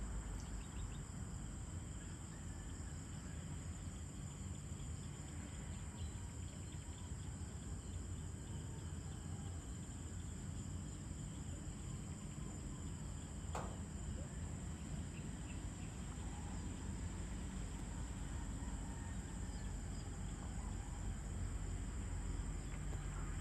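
Steady high-pitched chorus of evening insects, crickets trilling without a break, over a low steady rumble. A single short click sounds about halfway through.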